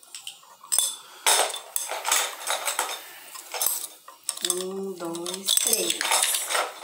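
Small toy blocks clicking and clattering as they are picked up and set down on a stone countertop, in quick irregular knocks. About halfway through, a short hummed voice sound rises over the clatter.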